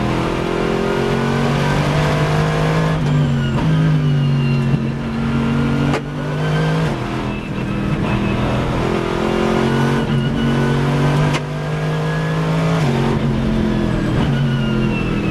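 Race car engine heard from inside the cockpit, pulling hard and rising in pitch, easing off for corners, then revving up again. It upshifts from third to fourth gear in the second half.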